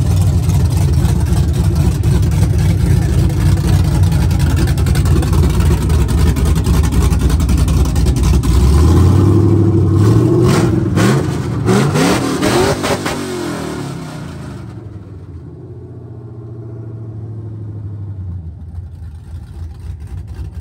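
Square-body Chevrolet pickup's engine running with a loud, deep idle, revved up and down a few times about nine to thirteen seconds in, then settling back to a quieter idle.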